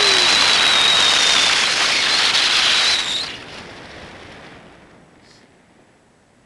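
Loud rush of airflow buffeting the microphone during a paragliding flight, with a thin high whistle over it; about three seconds in it drops away abruptly to a faint hiss.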